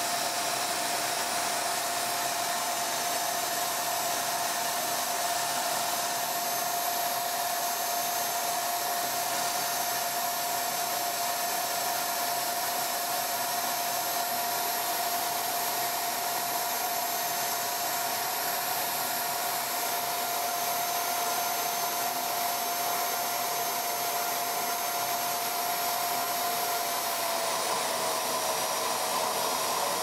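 Miele S5781 canister vacuum cleaner running at full power with its hose choked off against a vacuum gauge: a steady motor whine over rushing air. The whine drops slightly in pitch near the end.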